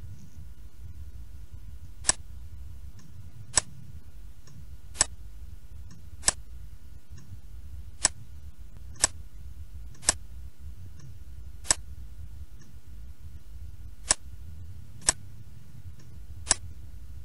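Computer mouse clicking: eleven single sharp clicks, unevenly spaced one to two seconds apart, over a steady low background hum.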